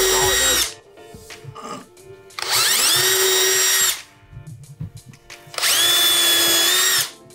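Cordless drill boring holes into a wooden floor in short runs: a steady motor whine that stops just under a second in, starts again around the middle and runs a second and a half, then a third run near the end that winds down and stops.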